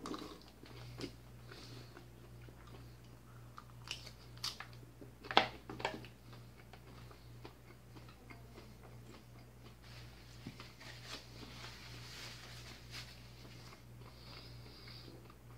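Faint chewing and crunching of a mouthful of leafy salad, with a few short sharp clicks, the loudest about four to six seconds in.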